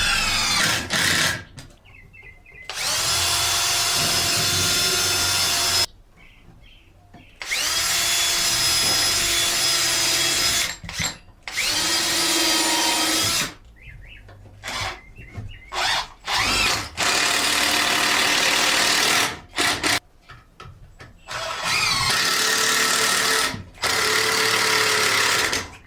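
Cordless drill driving 3-inch star-head deck screws into wood: the motor whines up in pitch and runs in about eight bursts of one to three seconds each, with short pauses between.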